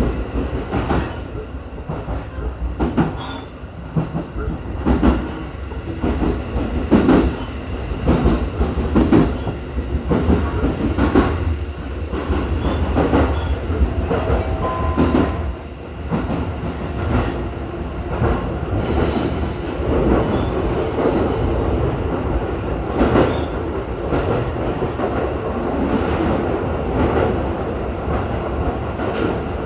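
Electric commuter train running between stations: steel wheels clicking irregularly over rail joints above a steady rumble. A brief wheel squeal comes about halfway through, and a few seconds of hiss about two-thirds of the way in.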